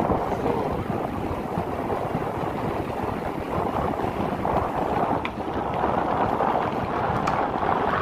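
Wind noise on the microphone and tyre rumble from a mountain bike rolling fast, with a few faint clicks from the bike.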